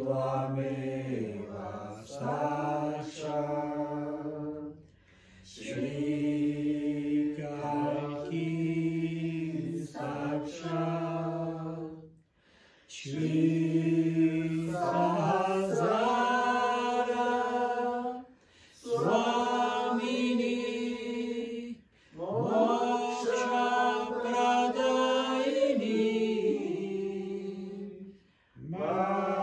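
Slow devotional mantra chanting by voice without instruments: long held sung phrases, separated by short pauses for breath.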